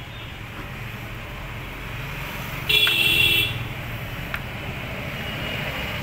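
Steady rumble of road traffic, with one short vehicle horn blast about three seconds in.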